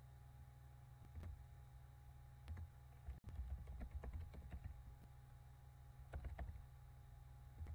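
Faint computer keyboard typing in short runs of keystrokes, with a longer run in the middle, over a steady low electrical hum.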